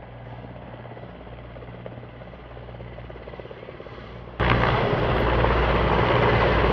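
Aircraft engine noise with a steady low hum and a fast rhythmic chop, like a helicopter. About two-thirds of the way in it cuts abruptly to a much louder rushing roar.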